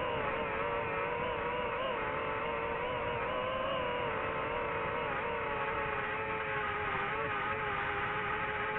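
DJI FPV drone's electric motors and propellers whining in flight, the pitch wavering up and down with throttle changes, over rushing air noise.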